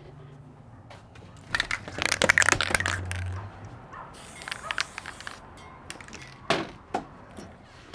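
Crackling and rustling as material is handled, then a short hiss of aerosol tacky spray adhesive about four seconds in, and two sharp clicks near the end.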